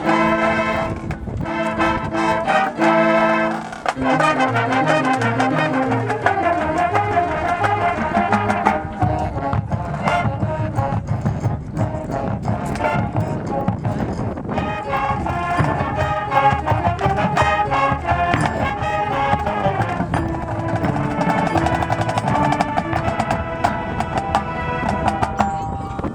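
High school marching band playing: brass chords with drums and percussion strokes underneath.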